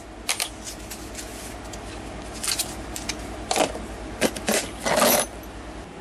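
Small steel drill bits clinking and rattling against each other in a plastic tub as they are handled: a run of sharp, irregular metallic clicks, the loudest about three and a half and five seconds in.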